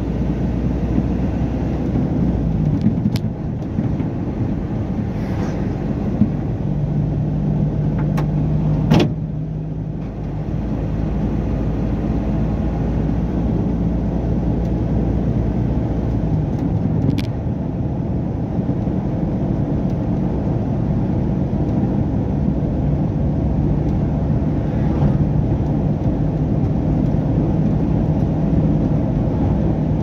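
Truck engine running steadily with road noise, heard inside the cab while cruising along the highway. A few brief knocks come through, the loudest about nine seconds in.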